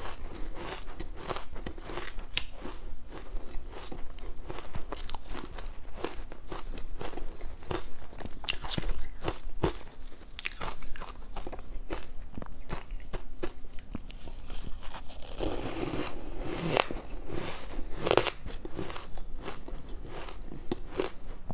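Powdery ice dusted with matcha powder being crunched and chewed in the mouth, a dense run of crisp crackling crunches. A gloved hand digs into the ice in the bowl.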